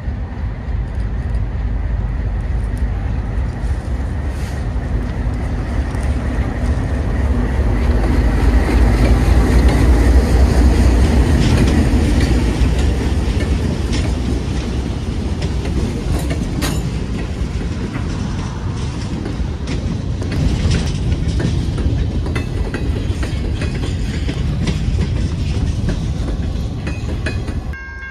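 Freight train led by two ALCO diesel locomotives rolling past. The heavy engine rumble is loudest about a third of the way through, then eases as the cars go by, with wheels clacking over rail joints.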